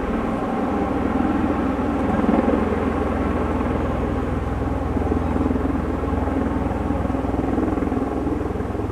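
MV-22 Osprey tiltrotor hovering low in helicopter mode and setting down on the runway: a steady drone of its proprotors and engines.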